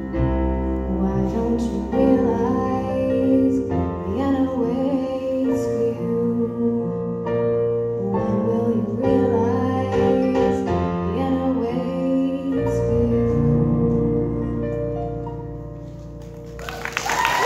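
A woman singing to electric keyboard accompaniment played in a piano voice; the song closes on a held chord that fades away. Near the end the audience breaks into cheering, with whoops and whistles.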